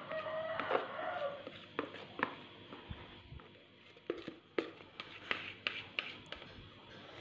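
Quiet handling of a plastic mixing bowl tipped over a square metal baking tin as sponge-cake batter is poured out: scattered light taps and clicks of the bowl and hand against the tin.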